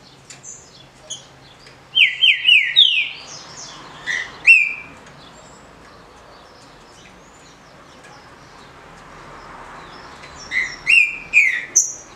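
Green-winged saltator (trinca-ferro) singing its short song. About two seconds in comes a loud phrase of quick, rising whistled notes, a few more notes follow near four seconds, and another short phrase comes near the end. Soft chirps fall between the phrases.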